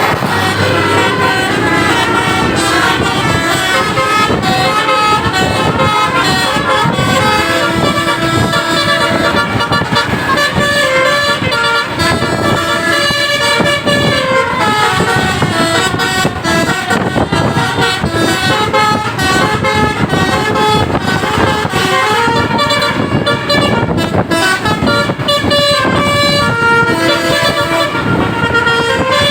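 Basuri musical bus horns playing telolet tunes, one following another, in stepped melodic notes that run without a break, over the buses' engine and road noise.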